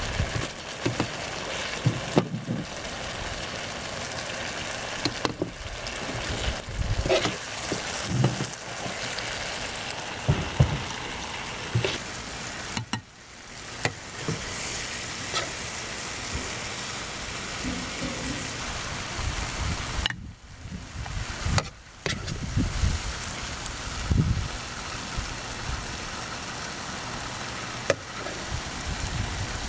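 Steady sizzling hiss of a tomato and onion sauce in a wok, with scattered knocks and scrapes of a nylon slotted turner as the sauce is scooped out. The hiss breaks off briefly a few times.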